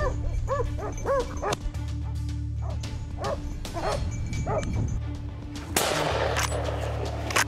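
Dog barking, about seven short barks in the first five seconds, over steady background music. A rush of noise lasts about a second and a half near the end.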